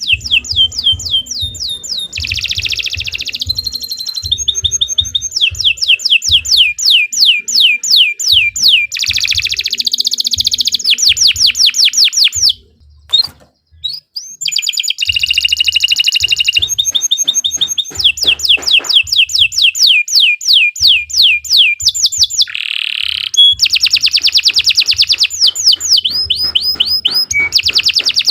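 Domestic canary singing a long, loud song made of rapid trills, quick runs of repeated falling notes that change pace and pitch from one phrase to the next. The song breaks off briefly about halfway through.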